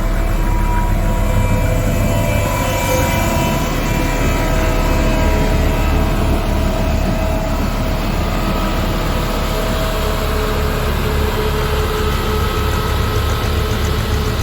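HAMM 311 road roller's diesel engine running steadily, with a held whine over a low throb that becomes a rapid, even pulsing in the second half.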